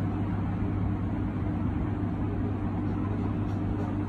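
Steady low electrical hum with an even hiss over it, like a running motor or fan, unchanging in pitch and level.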